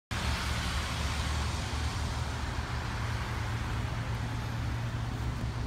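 1967 Cadillac Fleetwood 75's 429 V8 idling with a steady low hum.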